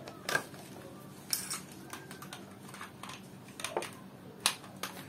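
A handful of sharp plastic clicks and taps from a DC barrel plug and a wall power adapter being handled and plugged in. The strongest clicks come near the start and about four and a half seconds in.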